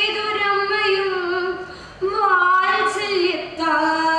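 A girl reciting a Malayalam poem in the sung padyam chollal style, unaccompanied, drawing out long notes in each line. Her voice breaks off briefly twice, about two seconds in and again near the end, before the next phrase begins.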